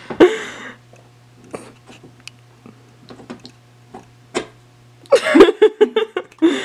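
Hand screwdriver turning a screw in a wall, making a few scattered faint clicks and scrapes over a low steady hum. A brief vocal sound comes just at the start, and a louder stretch of voice sounds, like laughing, about five seconds in.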